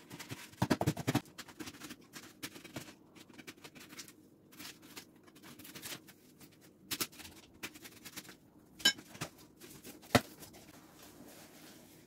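Knife cutting packing tape on a cardboard box, then the cardboard flaps being opened and handled: a string of short scrapes, crackles and clicks with a few sharper ticks.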